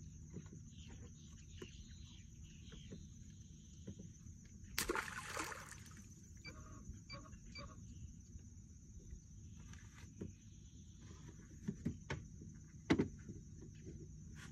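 Outdoor ambience around a small boat: a steady high-pitched hum and low rumble, with a brief rush of noise about five seconds in and a few sharp clicks and knocks later on.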